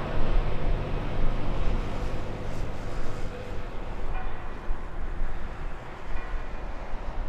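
Jet airliner engines, a steady deep rumble.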